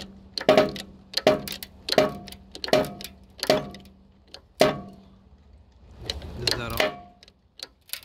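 Hydraulic bottle jack in a shop press being pumped by its handle, a sharp metallic clack with a short ring on each stroke, about one stroke every three-quarters of a second, as it presses a new front wheel bearing into the steering knuckle. The strokes stop about five seconds in, and a short uneven noise follows near the end.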